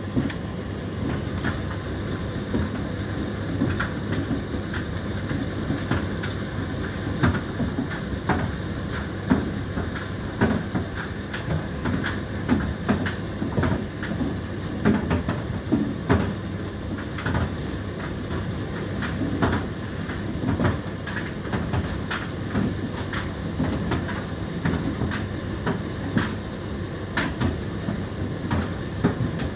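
Indesit IDC8T3 condenser tumble dryer running mid-cycle: a steady motor and fan hum as the drum turns, with irregular knocks and clicks from the laundry tumbling inside.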